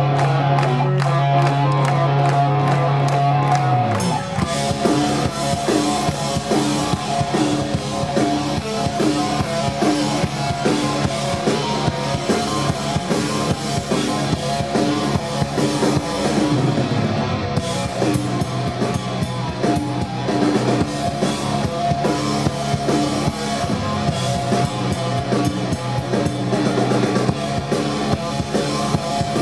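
Rock band playing live: an electric guitar holds sustained chords alone, then about four seconds in the drums and bass guitar come in and the full band plays a driving rhythm.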